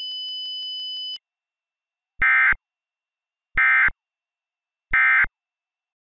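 A steady high electronic tone with a faint rapid ticking cuts off about a second in. Then come three short identical digital data bursts about a second apart: the SAME end-of-message tones that close an Emergency Alert System broadcast.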